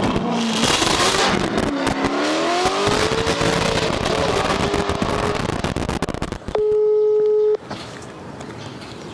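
Chevrolet Corvette C5's V8 engine revving hard, its pitch climbing over a couple of seconds under heavy tyre and road noise. About two-thirds in, this gives way to a single steady telephone ringback tone lasting about a second.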